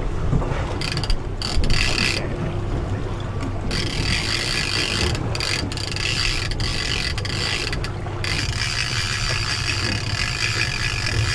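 Trolling reel being cranked steadily against a hooked striped bass, its gears whirring and clicking, over a low steady rumble.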